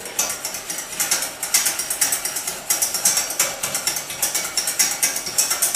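Whisk beating orange cream in a stainless saucepan on the heat, clicking against the pan in a quick, even rhythm of about four strokes a second. The beating goes on without a break so the egg does not curdle as the cream heats.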